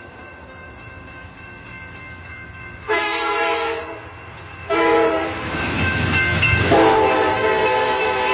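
Railroad crossing signal ringing steadily over the low rumble of an approaching train, then the train's horn sounds a chord: one short blast about three seconds in and a long blast from about five seconds to the end, as the train rumbles past.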